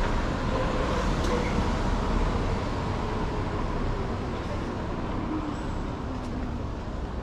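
City street ambience: steady road traffic noise, easing off slightly toward the end.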